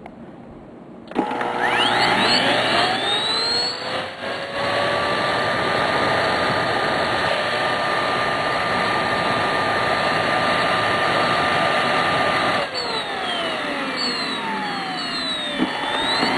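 Hoover Z400 upright vacuum's brushless motor switched on about a second in, its whine climbing gradually over a few seconds to a steady pitch rather than jumping straight to full speed. It is switched off about two-thirds of the way through, winding down with a falling whine, and started again just before the end.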